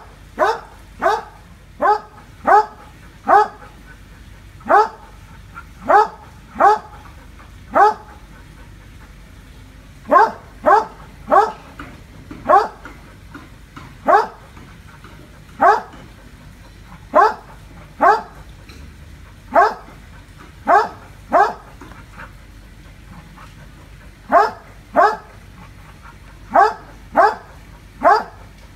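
A dog barking over and over at a monitor lizard, single short barks about one a second, with a couple of brief pauses.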